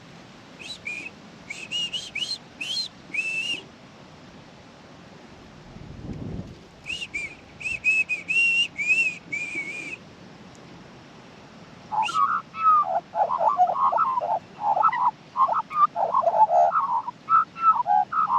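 A person whistles a short tune in two phrases of quick, clean notes. About two-thirds of the way through, an Australian magpie answers with a loud run of warbling song that goes on to the end.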